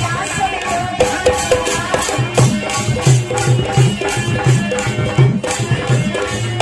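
Live Alha folk music without singing: a hand drum beating a steady rhythm of about two low strokes a second, with jingling percussion and a melodic instrument line over it.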